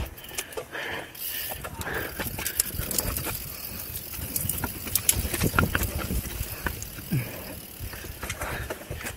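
Mountain bike rolling fast down a dirt singletrack: tyres on dirt and roots with a steady low rumble, and irregular rattles and knocks from the bike as it goes over bumps, busiest around the middle.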